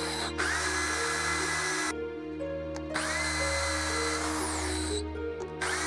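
Electric drill boring holes through a 4-inch PVC pipe in three runs: each spins up with a rising whine and holds steady, and the first two wind down as the trigger is released. The first run starts just after the opening and stops before 2 seconds in, the second stops around 5 seconds in, and the third starts near the end. Background music plays underneath.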